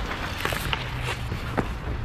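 Roller hockey play: inline skate wheels rolling on the rink surface over a steady low rumble, with a few sharp clacks of sticks and puck.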